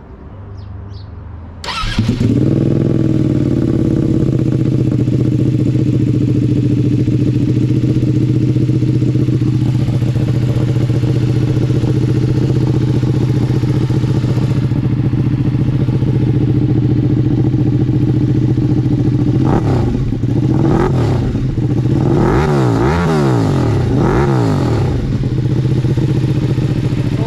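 Ducati Panigale V2's 955 cc L-twin engine breathing through an SC Project titanium half-system exhaust. It starts about two seconds in and settles into a steady idle, then gets a series of quick throttle blips near the end, each rising and falling in pitch.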